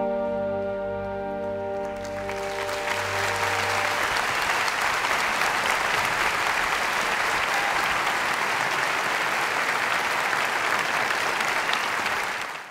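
A symphony orchestra's final chord, with harp, rings out and fades over the first few seconds. Audience applause breaks out about two seconds in, builds and continues steadily, then cuts off at the end.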